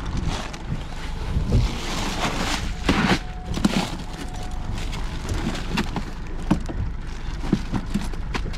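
Wind buffeting the microphone on a small boat, with scattered knocks and rustling as fish and a bag of ice are handled in the boat's cooler.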